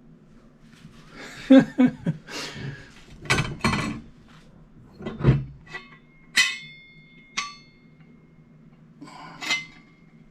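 Small metal tools and parts being handled and set down: some rustling and dull knocks, then three sharp metallic clinks that ring on briefly, the later ones about a second apart.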